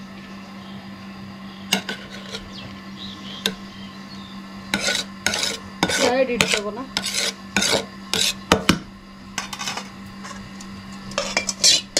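Perforated steel spoon stirring and levelling cooked biryani rice in a large aluminium pot, with repeated scrapes and clinks of metal on the pot. The strokes come in clusters, busiest from about five to nine seconds in and again near the end.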